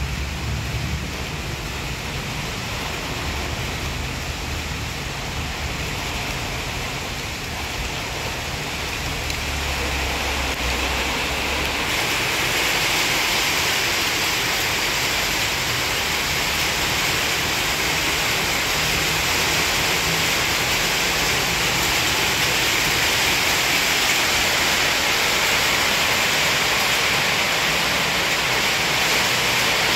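Steady rushing noise with no pitch or rhythm. About twelve seconds in it turns brighter and a little louder.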